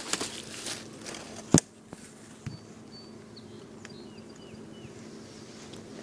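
Handling noise from a metal jeweler's loupe held against an iPod camera: rustles, then one sharp click about a second and a half in, over a steady low hum. A few faint short chirps follow.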